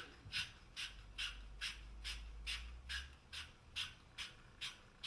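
Even, repeated scraping strokes, about two a second, of metal working the freshly cut end of a half-inch copper pipe.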